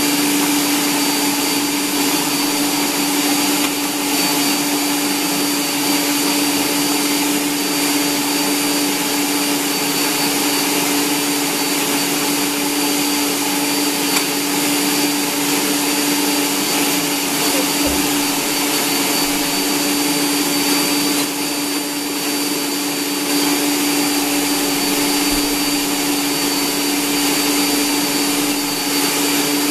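Electric stand mixer running steadily at one speed while mixing biscuit dough in a stainless steel bowl: an even motor hum with a thin high whine.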